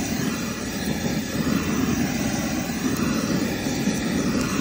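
Handheld propane torch blowing a steady flame into lump charcoal to light it.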